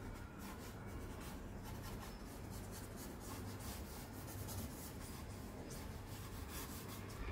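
Charcoal stick scratching and rubbing across drawing paper in quick, irregular strokes.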